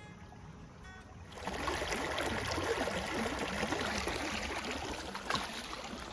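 Water running, starting suddenly about a second and a half in and carrying on steadily with a gurgling, trickling sound.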